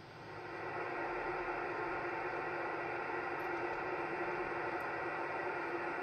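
Icom IC-751A HF receiver hissing with band noise on 75 meters between transmissions, the static swelling up over the first second after the last station unkeys and then holding steady, with faint steady tones in the hiss.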